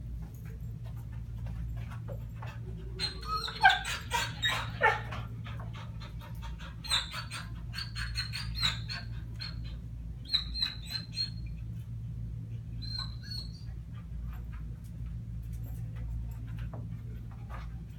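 Dog whining in short high-pitched bursts, a cluster about three seconds in and more between about seven and thirteen seconds, mixed with quick clicks and taps, over a steady low hum.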